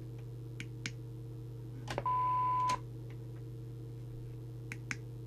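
Midland M-Mini CB radio's buttons clicking as they are pressed, with one steady beep from the radio lasting about three-quarters of a second about two seconds in, the loudest sound here. A steady low hum runs underneath.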